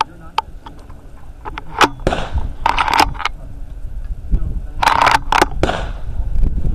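Rifle and scope-mounted camera being handled and moved: a series of sharp clicks, then several short scraping, rustling bursts about two, three and five seconds in.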